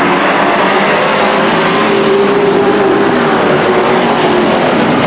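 Engines of a pack of dirt-track stock race trucks running at racing speed: a loud, steady, dense engine noise with engine notes drifting a little up and down.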